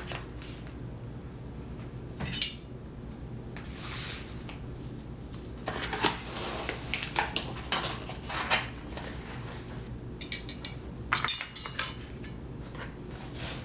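Cutlery clinking and scraping against dishes in scattered, irregular strokes, with a quick run of clinks about ten to eleven seconds in.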